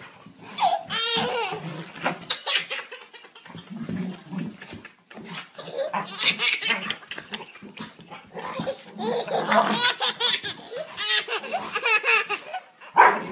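A baby laughing in repeated bursts with short pauses between them.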